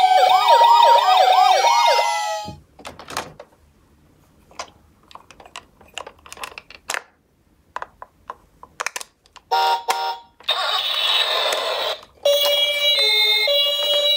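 Toy ambulance minicars' electronic sirens: a wailing siren over a two-tone siren that cuts off about two seconds in, then several seconds of small plastic clicks and knocks. Near the end a short electronic tone burst and a brief noisy siren sound lead into a steady two-tone hi-lo 'pee-po' ambulance siren.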